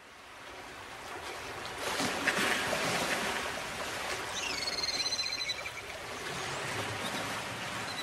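A rushing noise like surf or running water fades in and holds steady, with a high, whistled bird-like call with a pitch glide about halfway through.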